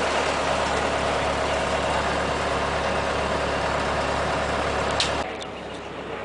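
Dump truck engine idling steadily. About five seconds in it cuts off suddenly, leaving a much quieter background.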